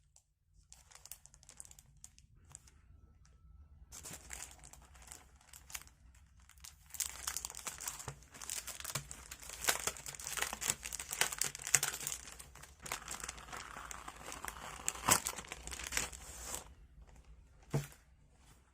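Packaging being crinkled and torn open by hand during an unboxing: faint at first, then dense crackling rustle for about ten seconds, ending with a sharp click.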